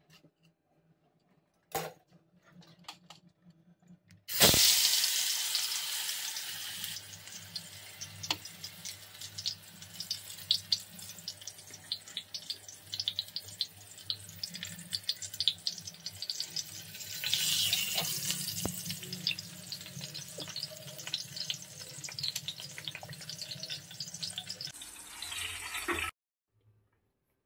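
Watermelon wedge frying in hot oil in a pan: a sudden loud hiss about four seconds in as it meets the oil, then steady sizzling with many small crackles and pops, swelling again a little past halfway and cutting off near the end.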